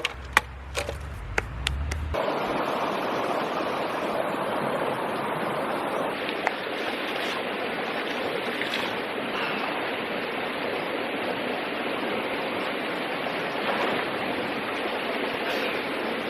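A few sharp clicks over a low rumble, then about two seconds in a mountain creek's water rushing steadily over rocks.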